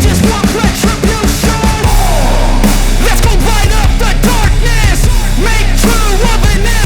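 Loud rap-rock background music with distorted guitars and a heavy steady beat; the bass drops in about two seconds in.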